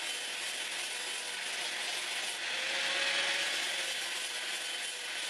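Electric angle grinder with a sanding disc running against a wooden knife handle, a steady grinding hiss of the disc on the wood over the motor's faint whine, swelling a little about halfway through.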